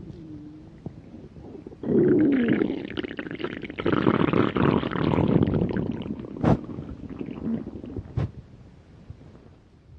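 A person's stomach growling from hunger. A soft rumble swells abruptly into a long, loud gurgling growl about two seconds in, then fades out near the end. Two sharp clicks come along the way.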